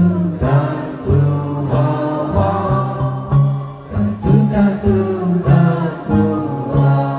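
Live band playing a song: a pulsing bass line under guitar and a melody line, with some singing.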